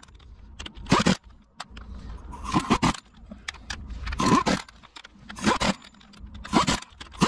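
Cordless impact wrench run in about six short bursts, a second or so apart, each a rising whine as the motor spins up. It is running the wheel planetary's bolts in, in a crisscross pattern, before they are torqued by hand.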